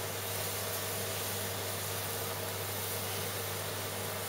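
Steady hiss over a constant low hum from the open oven, fully up to temperature, while batter is poured into the hot fat in a muffin tin.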